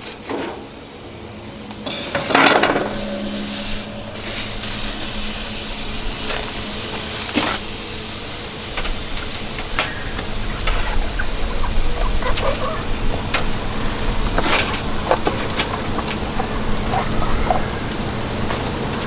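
Soaked cedar planks knocking onto the hot grates of a lit propane gas grill, with a louder clatter about two and a half seconds in. A steady hiss runs underneath, with scattered clicks and knocks from the foil pan and the salmon tray being handled.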